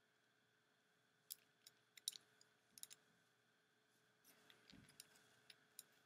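Faint, scattered clicks of plastic Lego Technic pieces knocking together in the hands, about a dozen, in two bunches.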